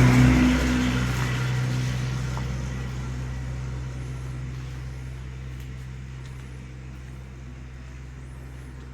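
MZ ETZ 251 single-cylinder two-stroke engine running. It eases off from higher revs about a second in, then idles steadily and grows gradually quieter. The exhaust connector has been freshly sealed with high-temperature silicone and no leak can be heard from it.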